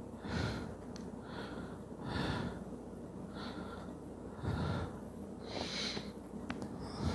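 A person breathing audibly close to the microphone, soft in-and-out breaths about once a second.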